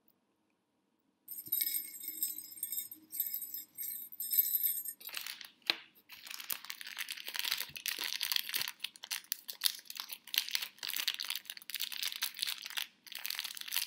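A tiny jingle bell jingling in short rings for a few seconds. After that comes a stretch of gift-wrapping paper crinkling and tearing as a small present is unwrapped.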